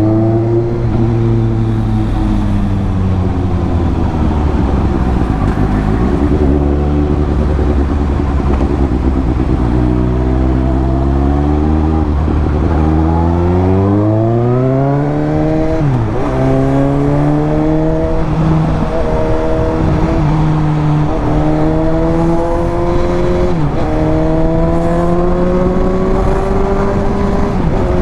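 Suzuki GSX-S750's inline-four engine and exhaust under way on the road. The note first sinks and holds, then climbs steadily under acceleration, with three quick drops in pitch at the upshifts in the second half, each followed by another climb.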